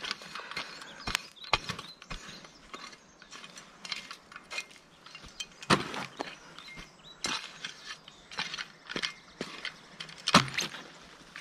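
Irregular scraping and knocking of dirt and gravel being scraped and dumped over spread-out campfire coals to smother the fire, with two louder knocks, about halfway through and near the end.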